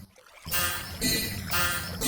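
Railroad crossing warning bell ringing in a steady rhythm of about two strokes a second, resuming after a brief gap at the start.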